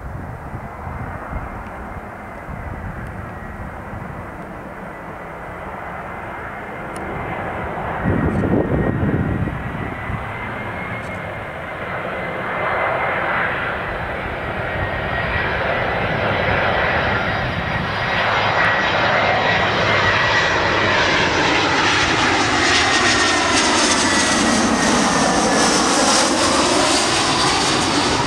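Airbus A319-112's two CFM56 turbofan engines at approach power on final. A steady high whine grows steadily louder as the airliner comes in, turning into a loud rush with sweeping tones as it passes close overhead near the end. A brief low rumble comes about eight seconds in.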